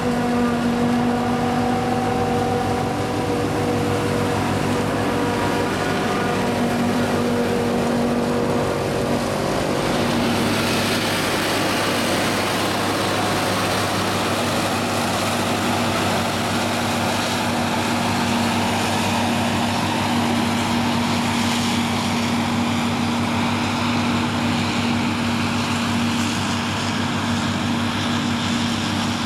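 New Holland FX48 self-propelled forage harvester chopping maize, its diesel engine and cutterhead running steadily under load with a constant whine, together with the John Deere 6910 tractor running alongside with the trailer. From about ten seconds in the sound turns hissier.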